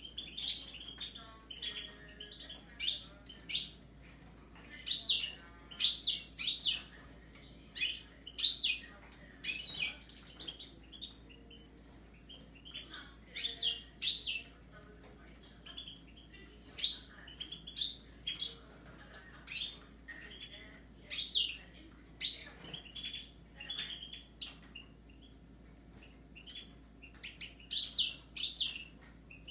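Caged goldfinches and Raza Española canaries singing and calling together: short bursts of high, rapid twittering, a second or so long, coming every second or two.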